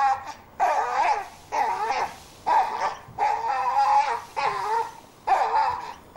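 A dog giving a run of high-pitched whining barks, about one a second, each call wavering in pitch.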